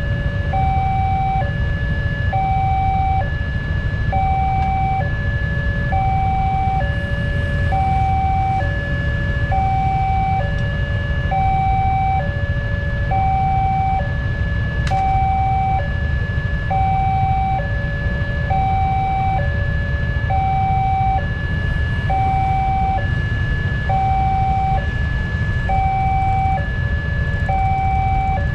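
Railway level-crossing warning alarm sounding its electronic two-tone ding-dong, a high and a low note alternating about once a second, steady and unbroken, signalling that a train is due and the barriers are down. Under it runs a low rumble of waiting traffic.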